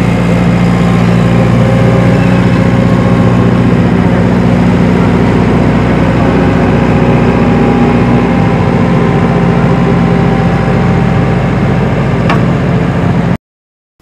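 Diesel engine of an RNLI lifeboat launch tractor running steadily close by as it tows a lifeboat trailer, a loud low drone. It cuts off abruptly shortly before the end.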